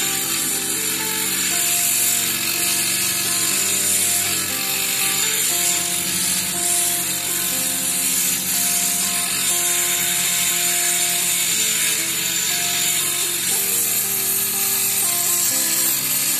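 Electric angle grinder running steadily, its disc grinding a stainless steel piece to smooth it down, with a continuous high grinding hiss. Background music plays under it.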